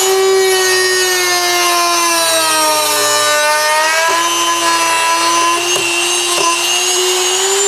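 Handheld rotary tool with a small abrasive disc grinding down a raised plastic tab on a stock air intake box: a steady high whine that dips a little in pitch in the middle and climbs again near the end.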